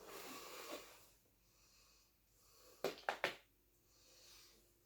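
A soft breath close to the microphone, then a quick cluster of three or four sharp clicks and knocks about three seconds in, from the small plastic smart tape measure being handled.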